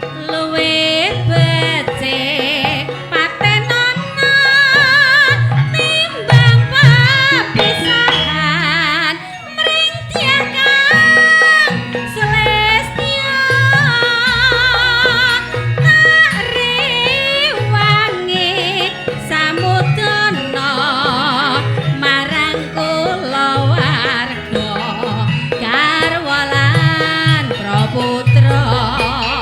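Javanese campursari-style ensemble playing a slow dangdut passage: kendang hand-drum beats under a wavering melody line with heavy vibrato.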